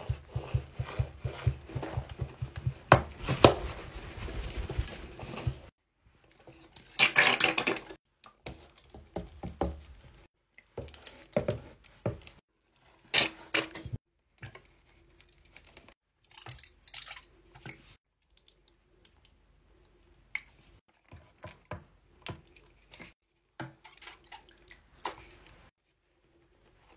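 Powdered cleanser shaken from a canister into a sink basin, in a fairly continuous patter for the first few seconds. Then liquid cleaners are squeezed from plastic bottles, squirting and dripping onto the powder in a series of short separate sounds with brief gaps between them.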